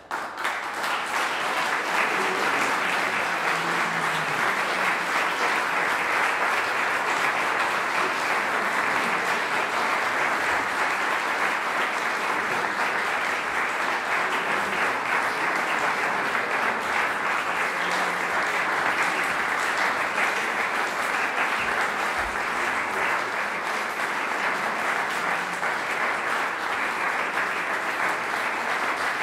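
Audience applauding: the clapping breaks out all at once and keeps up steadily.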